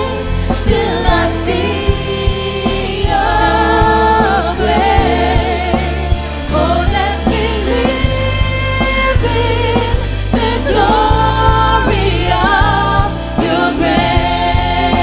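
Live worship band music: women's voices singing the lead with backing singers over electric guitars, bass and drums.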